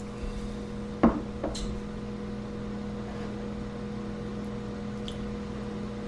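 Quiet room tone with a steady hum, broken by one sharp click about a second in and a couple of fainter ticks.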